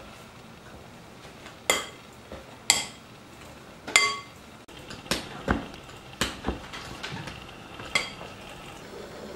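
Metal wire potato masher mashing boiled potatoes in a glass bowl: several sharp, ringing clinks of metal striking the glass, with a few duller thumps in the middle as the masher presses down into the potato.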